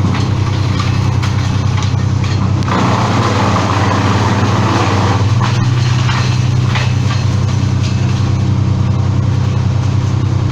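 An engine running steadily at a constant speed, with a rougher, louder patch of mechanical noise for a few seconds after the first three seconds.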